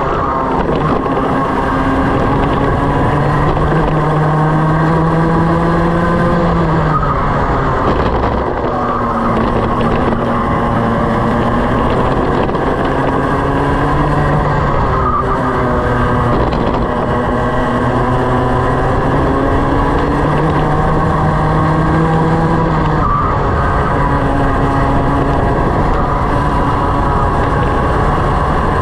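Racing kart engine heard onboard, its pitch climbing steadily and then dropping sharply several times as the kart slows, before rising again, over a constant rush of wind and tyre noise.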